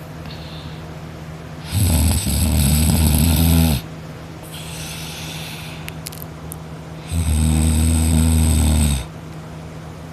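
A person snoring in his sleep: two loud snores of about two seconds each, with a softer breath out between them.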